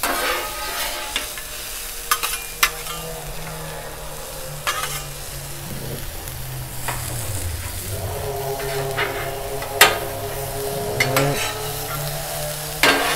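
Broccoli and onions frying on a Blackstone griddle's steel top, with a steady sizzle. Two metal spatulas scrape and toss the vegetables, giving sharp clacks now and then.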